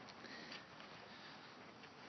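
Near silence: faint background hiss with a few soft ticks.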